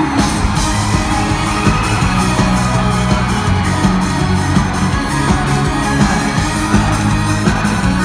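Live band with drums and keyboards playing an upbeat Vocaloid pop-rock song with a steady beat, recorded from the audience in a concert hall.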